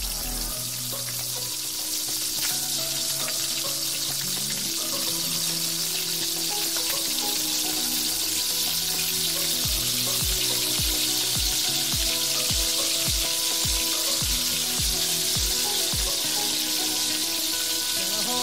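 Tomato and onion paste sizzling as it fries in a pan, stirred with a wooden spoon. Background music plays over it, with a kick-drum beat about twice a second that comes in about ten seconds in and drops out a couple of seconds before the end.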